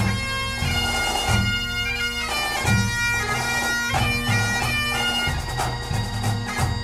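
Highland bagpipes playing a tune: the chanter melody steps from note to note over a steady, unbroken drone.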